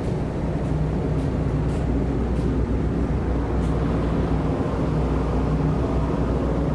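Steady low drone of a moored car ferry's engines and machinery, with a constant hum.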